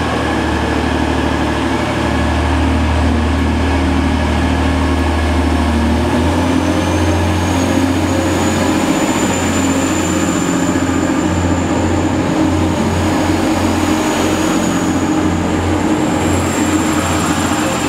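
Diesel passenger train running: a loud, steady low engine drone, with a thin high whine that rises about six seconds in and then holds.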